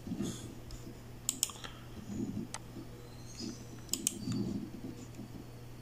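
Sharp computer mouse clicks: two close together about a second in, one more a little later, and another close pair about four seconds in, over a low steady hum.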